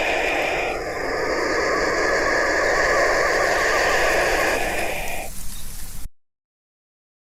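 Black vultures hissing, a dense steady rasping hiss that cuts off abruptly about six seconds in.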